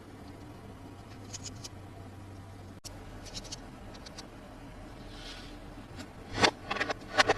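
Plastic toy packaging being handled: faint scattered ticks and scratches, then a quick run of louder clicks and knocks near the end.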